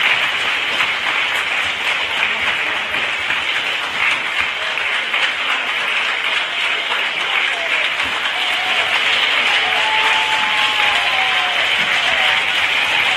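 A lecture-hall audience of children applauding steadily, with a few voices calling out over the clapping in the second half.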